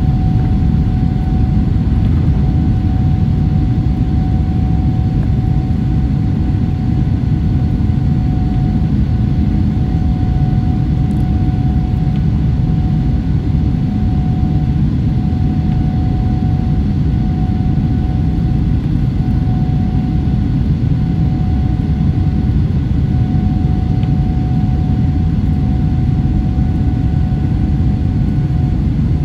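Steady low roar inside the upper-deck cabin of a Boeing 747-8 climbing out after takeoff: airflow and its four GEnx engines at climb thrust, with a faint steady whine running through it.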